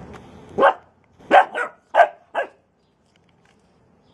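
Bernese mountain dog puppy barking: five short barks in quick succession over about two seconds.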